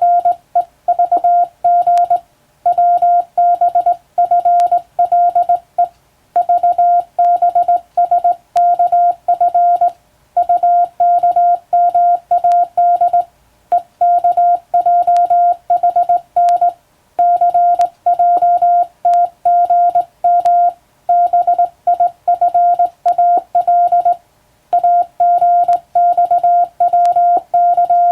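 Morse code sent on a hand telegraph key, heard as one steady mid-pitched beep switched on and off in fast dots and dashes. Runs of letters last a second or two, with short pauses between words.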